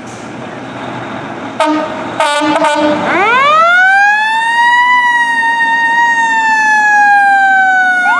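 A 2017 Pierce Velocity fire truck pulling out: its diesel engine running, then a few short horn blasts about a second and a half in, then its siren rising in pitch for about two seconds and slowly falling. A second siren starts rising near the end.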